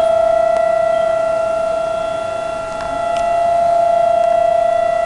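Tsunami warning siren sounding one loud, steady tone that holds its pitch while its loudness slowly swells, dips, and swells again.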